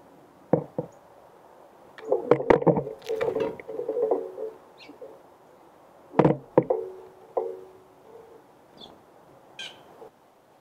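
Birds landing and hopping on a platform bird feeder heaped with peanuts in the shell, knocking and thumping on the tray with a brief ringing after each knock, busiest about two seconds in and again around six seconds. A few faint bird chirps near the end.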